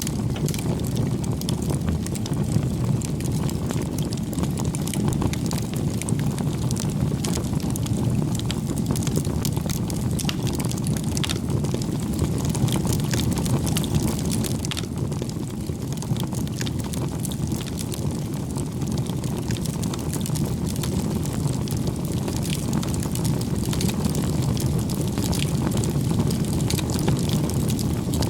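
Wood bonfire burning: a steady low rush of flame with frequent sharp crackles and pops from the burning wood.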